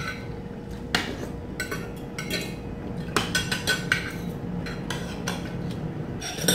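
Metal spoons and forks clinking and scraping against plates while people eat, in irregular light clinks with a brief ring after some of them.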